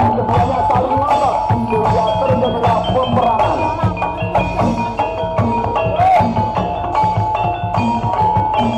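Gamelan-style music: struck metallophones and mallet percussion ringing over a steady beat of drum strokes, with a wavering melody line above.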